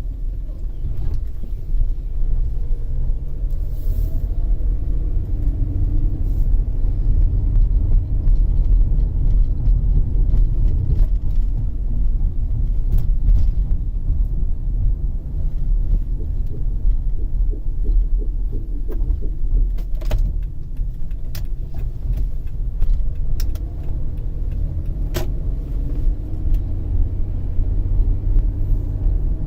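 2005 Toyota Sienna on the move: a steady low rumble with a faint wavering hum above it. This is the grinding from the front passenger wheel, loudest when coasting off the gas and gone under braking, which the owner suspects is a wheel bearing or the brakes. A couple of sharp clicks come in the second half.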